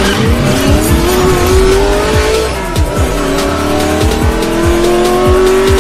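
Race car engine sound effect revving up: its pitch climbs, falls back about halfway through as at a gear change, then climbs again. Under it plays electronic music with a steady kick-drum beat.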